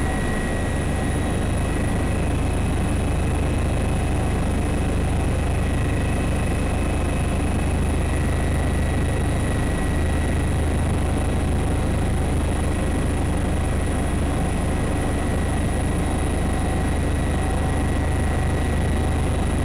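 Steady drone of an aircraft in flight heard from on board: a deep, even hum with thin, steady high whines above it, unchanging.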